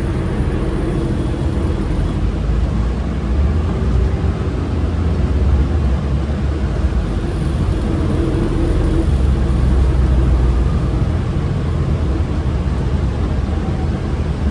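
Orion VII NG transit bus under way, heard from inside the cabin: a steady low engine and drivetrain rumble with road noise, swelling slightly a couple of times.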